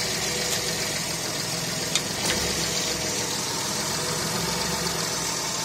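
Mitsubishi Toppo's engine idling, with a few short knocks about half a second and two seconds in as the gearbox is shifted between forward and reverse: the knock is from the right front driveshaft.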